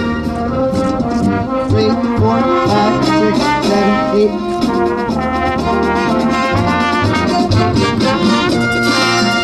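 A small marching band section of trumpets, saxophones and flutes playing a tune together, the brass loudest, with the notes moving steadily.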